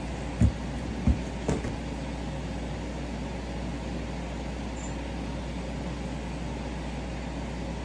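Three dull thumps in the first two seconds, footsteps on a wooden floor, over a steady hum of room noise.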